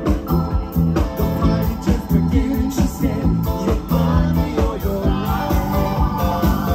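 Live rock band playing a song, with a steady drum beat under held chords.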